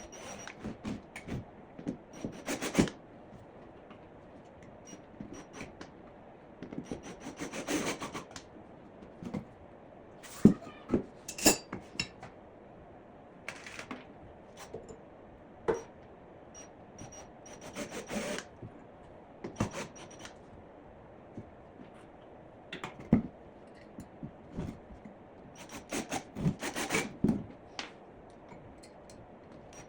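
Wooden boards being handled, scraped against each other and knocked together, in separate bursts with a few sharp knocks.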